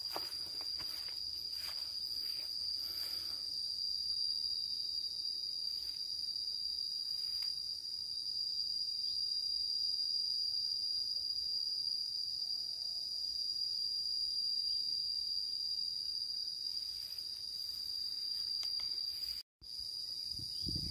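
A steady, high-pitched insect chorus drones without a break, with a few soft footsteps in the first three seconds. The sound cuts out for a moment near the end.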